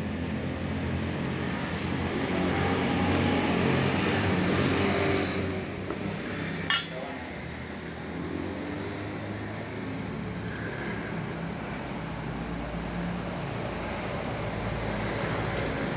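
Steady hum of a motor vehicle engine running nearby, swelling and fading over the first five seconds, with a single sharp metallic clink about seven seconds in, as of a tool or metal part being handled.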